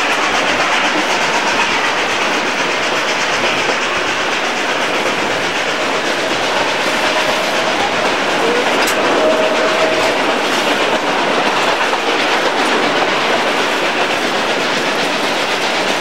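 Passenger train running along the track, heard from inside the coach: a steady rumble and clickety-clack of the wheels over the rails, with a couple of faint brief squeals about halfway through.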